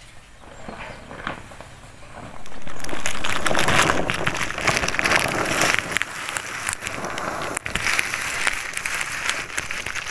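Stiff plastic tarpaulin rustling and crinkling loudly as it is lifted and folded over sun-dried paddy, starting about two seconds in and going on with many small crackles.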